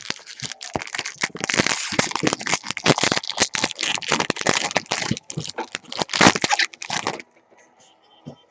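Foil trading-card pack wrapper being torn open and crinkled by hand: a dense crackling and crinkling with many sharp snaps, stopping about seven seconds in.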